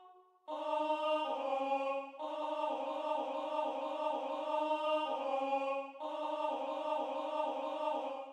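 Notation-software playback of a four-part SATB choir arrangement voiced by synthetic wordless choir 'aah' sounds, with the alto line as the featured part. It enters about half a second in with held chords, then moves into a run of quick repeated notes and ends on held notes.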